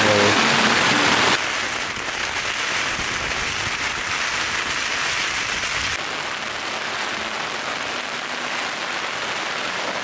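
Steady rain pattering on the fabric of a Coleman dome tent, heard from inside as an even hiss. It drops a step in level about a second and a half in.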